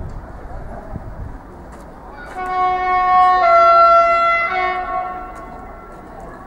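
An SNCF double-deck electric commuter train sounds its two-tone horn in a long blast starting about two seconds in, switching between its high and low notes and fading near the end, over the low rumble of the approaching train.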